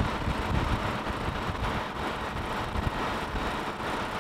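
Ship's engine-room machinery noise: a steady, even rush of sound with an uneven low rumble beneath it.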